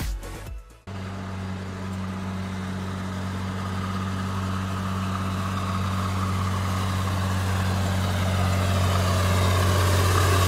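A heavy military-style truck's engine running steadily and slowly growing louder as the truck pushes through deep floodwater, with water churning around it. Music fades out in the first second, just before the engine sound comes in.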